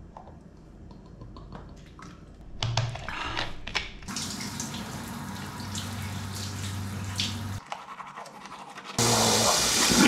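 Shower water spraying and splattering, starting about four seconds in, easing off a little, then much louder near the end. Before that, faint gulping and clicks from drinking out of a large plastic water bottle.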